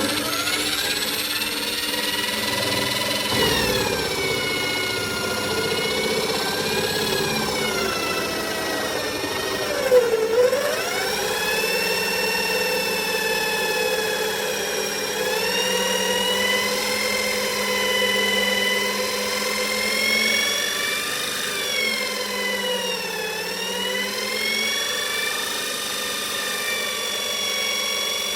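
Power tool with a diamond bit boring a hole into stone: a steady motor whine whose pitch sags twice as the bit bites and the motor is loaded, then recovers.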